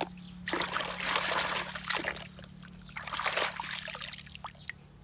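Water trickling and splashing in uneven spurts, over a steady low hum.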